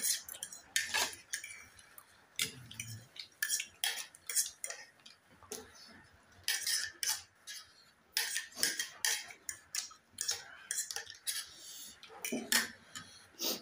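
Metal forks clinking and scraping against plates as noodles are eaten, in many sharp, irregular clicks.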